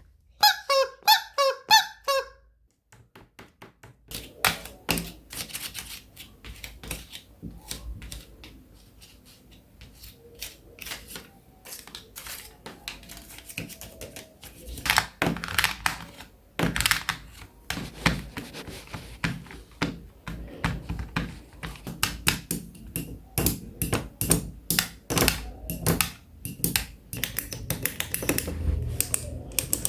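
Fidget board being played: a dense, irregular run of clicks, taps and snaps from its buttons, switches and toggles, busier and louder in the second half. It opens with a brief string of squeaky pitched notes lasting about two seconds.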